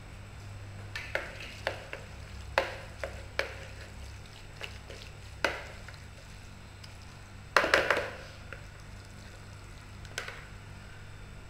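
A salad being mixed in a plastic bowl with a wooden spoon and by hand. Scattered sharp knocks and clicks of the spoon and containers, with a quick cluster of them about eight seconds in, over a low steady hum.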